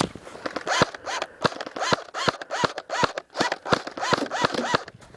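Airsoft electric rifle firing rapid single shots, about three a second, each a sharp mechanical click with a brief rising-and-falling gearbox whine.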